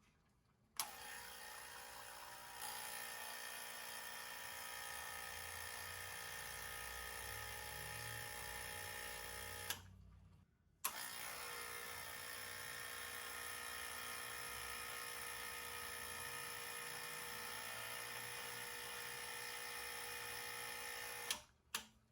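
The 1988 Olympia Maximatic espresso machine's pump running with a steady buzz for about nine seconds, stopping, then running again for about ten seconds. Each run starts and stops abruptly with a click. It is a working test of the reassembled machine.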